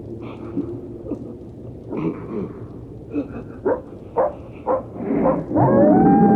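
Canine sound effect over a steady rumbling, rain-like noise bed. Scattered short yelps give way to three sharp barks about half a second apart, and near the end a long howl rises and then holds one pitch.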